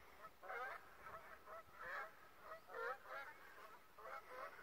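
Geese honking, a steady series of short calls at about two a second.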